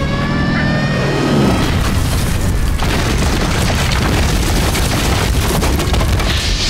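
Bomb explosion: a blast a little over a second in, followed by a long, loud rumble and crackle of noise.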